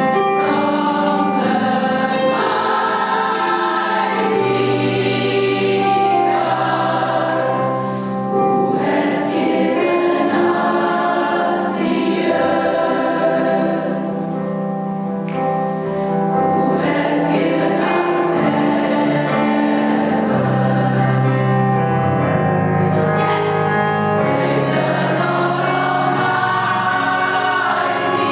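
A gospel choir singing with band accompaniment, the voices held and moving over a steady bass line.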